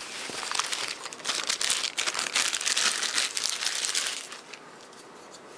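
Clear plastic bag crinkling as it is handled, in dense crackles that die down about four seconds in.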